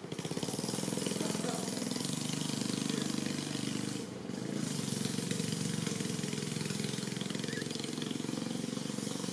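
An engine running steadily with a rapid, low pulsing, dipping briefly about four seconds in.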